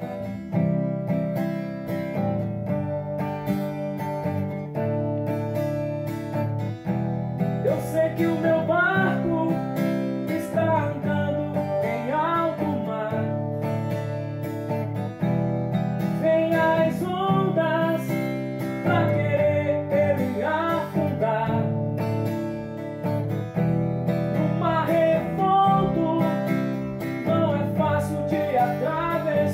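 Steel-string acoustic guitar strummed in a steady rhythm of chords, with a voice singing a melody over it from about eight seconds in.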